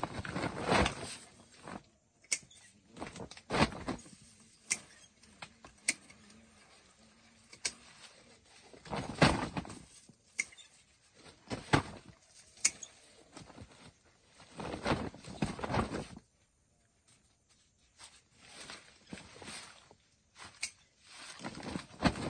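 Hand-harvesting of ripe cacao pods: sharp snaps and clicks at irregular intervals as pods are broken off their stalks, with rustling from dry leaves and a plastic bag. The sounds stop briefly about two-thirds of the way through.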